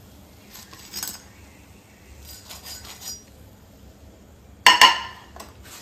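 Steel spatula and cookware clinking: a few light clicks, then two sharp metallic clinks close together near the end.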